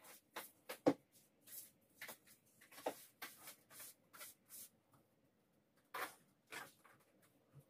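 Scattered short rustles, scrapes and light knocks of household things being handled, several in the first half, a pause of about a second, then a few more near the end.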